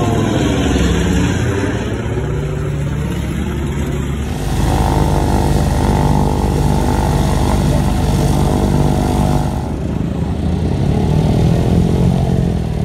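Boeing B-17 Flying Fortress's four radial engines running as it passes overhead. After a cut about four seconds in, a Vought F4U Corsair's radial engine runs steadily on the ground. After another cut near ten seconds in, the B-17's engines are heard again as it comes in on a low pass.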